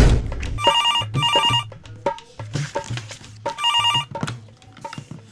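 A loud sharp thump at the start, then a desk telephone ringing with an electronic ring: two short rings close together about a second in, and one more about three and a half seconds in.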